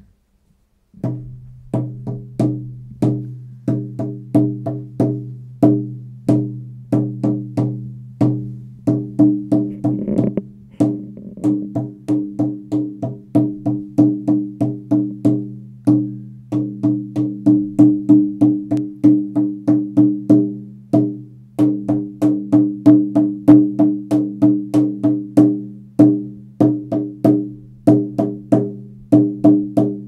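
16-inch maple-framed elk-hide frame drum beaten with a lathe-turned beater, starting about a second in: a steady beat of roughly three strokes a second, with the drum's low tone ringing on between strokes.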